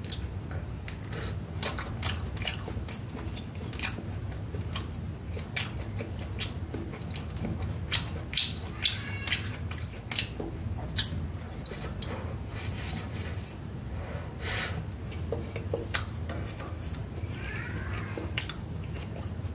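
A steady low hum with many irregular sharp clicks and taps scattered through it, and a brief chirp-like glide near the end.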